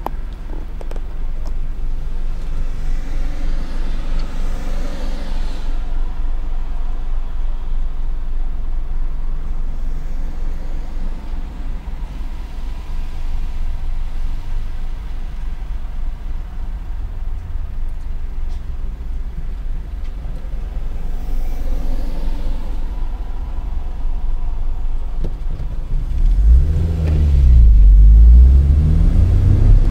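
Car engine heard from inside the cabin, idling as a low, steady rumble while the car stands still, with other traffic passing outside. About 26 seconds in, the engine gets much louder as the car pulls away, its pitch rising, dipping and rising again through the gears.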